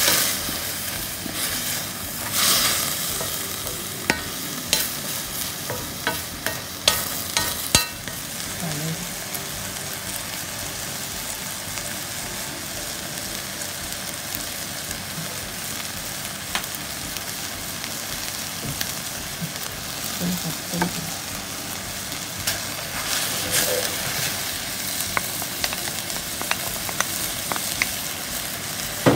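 Chicken and sliced onion sizzling in a hot wok as they are stir-fried with a wooden spatula. Sharp scrapes and knocks of the spatula against the wok come thickest in the first several seconds and sparser later.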